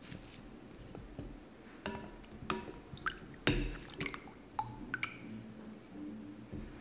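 A slotted spoon scooping potato cubes out of a glass bowl of water and tipping them onto a towel. There is a string of clinks against the glass, wet drips and soft taps, loudest about halfway through.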